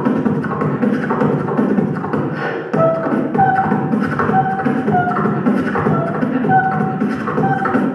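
Beatboxing through a handheld microphone and PA speaker: a continuous vocal drum rhythm, with short held vocal notes repeating over the beat from about three seconds in.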